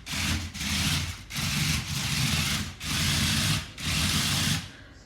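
WowWee CHiP robot dog's gear motors whirring in short repeated bursts, about seven or eight times, as the toy moves on a freshly fitted battery: the unit is fully working.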